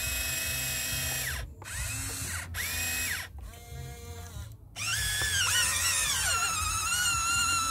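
Small electric motors of a radio-controlled model construction vehicle whining in short bursts, then from about five seconds in a longer whine that wavers up and down in pitch as the model is driven.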